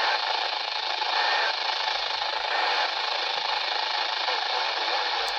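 Radio receiver static: a steady, even hiss with no voice getting through, cutting off abruptly near the end.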